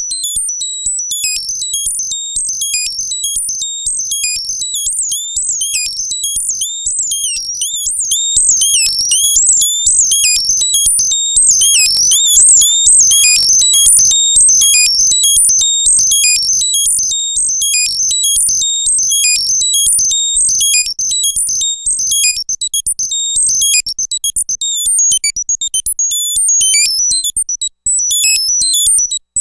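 Arturia MicroBrute analog synthesizer running a fast, chiptune-like sequence of short stepping notes pitched very high and shrill: the hidden effect of holding the tap button while recording a sequence. The sequence gets louder about eight seconds in and has a couple of brief gaps near the end.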